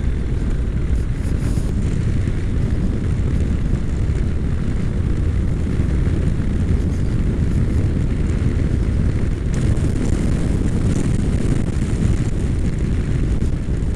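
Honda NC700X motorcycle's parallel-twin engine running at a steady cruise, mixed with a low rumble of wind on the microphone.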